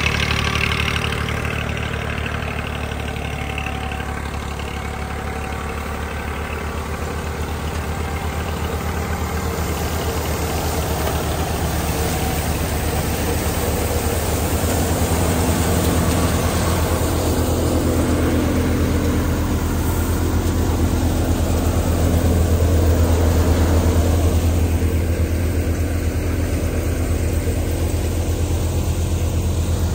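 Tractor diesel engine running steadily while it powers a grain thresher: a continuous low drone that dips slightly a few seconds in and swells again about three-quarters of the way through.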